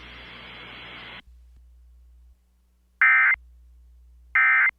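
Faint radio hiss for about a second, then two short, loud bursts of the Emergency Alert System end-of-message (NNNN) SAME data tone, a buzzy digital screech, about a second and a half apart. They mark the end of the tornado warning broadcast.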